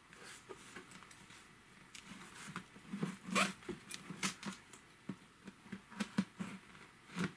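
Hands handling a taped cardboard mailer box, fingers scratching and picking at the packing tape, with scattered faint taps and scrapes.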